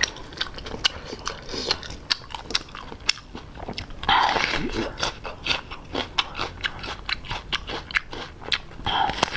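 Close-miked eating of spicy roasted seafood: crunchy biting and chewing with many sharp crackles, louder for a moment about four seconds in.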